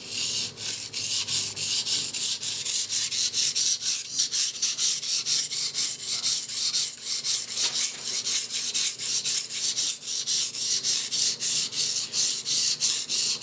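Blue-steel mini nakiri blade stroked back and forth under finger pressure on a wet 320-grit Nubatama Bamboo waterstone: a steady, rhythmic abrasive scraping, about four strokes a second.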